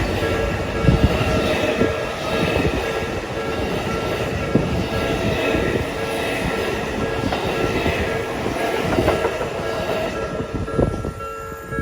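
Chiyoda Line electric train passing over a level crossing, its wheels clacking over rail joints. The crossing's warning bell rings steadily under it.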